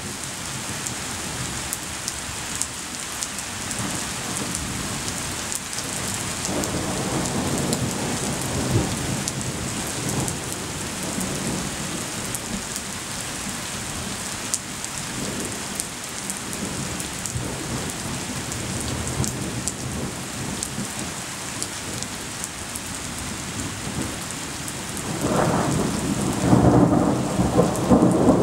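Thunderstorm: steady rain hissing and pattering on surfaces, with thunder rumbling low in the background about a third of the way in, then a louder, deeper roll of thunder starting a few seconds before the end.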